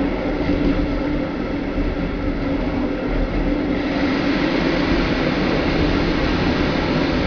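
Passenger train running along the track, heard inside its last carriage: a steady rumble of wheels on rail with a low hum. The hiss of the running grows louder about halfway through.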